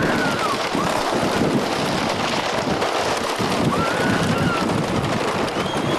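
Wind rushing over a camcorder microphone on a moving wooden roller coaster, with the train's rumble and rattle underneath. Short rising-and-falling shrieks from riders cut through about half a second in, about four seconds in and near the end.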